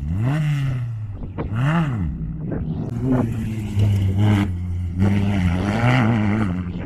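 Off-road race vehicle's engine revving hard through a turn: two quick rises and falls in pitch in the first two seconds, then held at high revs with the pitch wavering.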